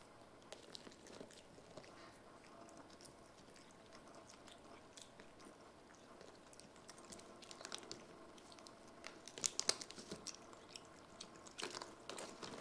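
Faint crunching of dry monkey biscuits being chewed, a run of crisp clicks that grows louder about nine to ten seconds in.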